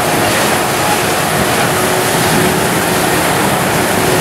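Locomotives rolling slowly past on the track, a loud steady running noise with a faint steady hum through it.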